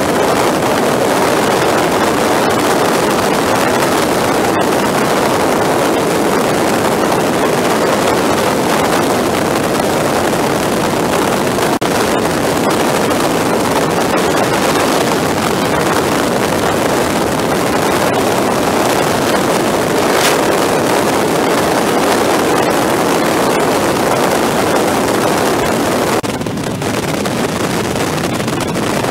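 Steady rush of wind noise on the microphone mixed with engine and road noise from a motorcycle cruising at highway speed, sped up fourfold. It eases slightly near the end.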